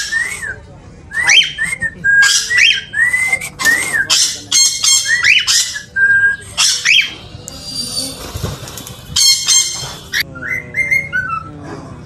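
Cockatiel calling in a string of short chirps that each rise and then fall, mixed with harsher squawks. Near the end come a few whistled notes stepping downward.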